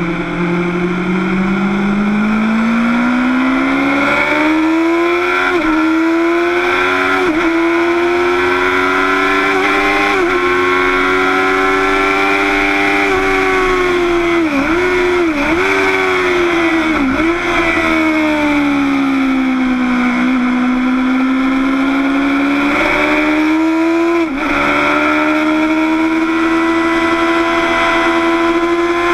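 Motorcycle engine at speed on a lap, heard from a camera mounted on the bike over steady wind rush. Its note climbs in pitch, with brief sharp dips at the gear changes, several of them close together around the middle. It drops lower through a slower stretch, then climbs again, with one more shift near the end.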